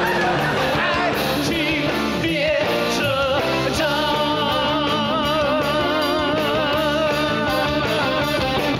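A man singing an upbeat pop song live into a microphone, backed by a band with electric guitar and drums. Through the second half he holds a long note with vibrato.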